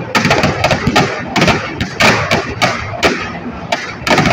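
Firecrackers packed into a burning Dussehra effigy going off in a rapid, irregular string of loud bangs, about four a second.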